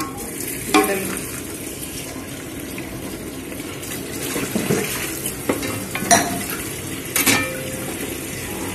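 Chicken curry gravy sizzling in a pan as a little water is poured in, with a few sharp clinks of a spoon against the pan.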